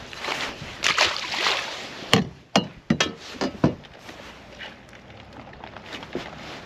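Handling noises aboard a fishing kayak. A rustling hiss comes first, then a run of sharp knocks and clicks over about two seconds, then quieter rustling.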